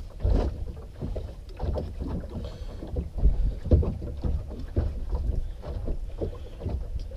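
Knife cutting along a whiting's backbone in a run of short, irregular scrapes, with wind buffeting the microphone.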